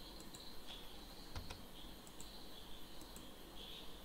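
A few faint, scattered computer keyboard keystrokes and mouse clicks, one a little louder about a second and a half in, over a steady high chirring of insects.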